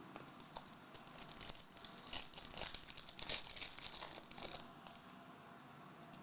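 Foil trading-card pack wrapper crinkling and tearing open, with cards rustling as they are handled, for about four seconds before it stops.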